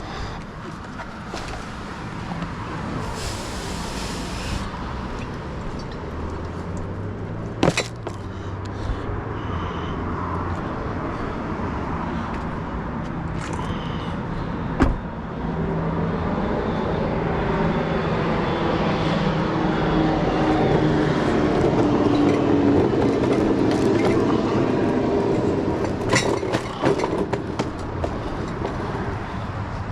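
Car driving, with steady engine and road noise whose pitch shifts and grows louder in the second half. A few sharp clicks come through, about 8 and 15 seconds in and again near the end.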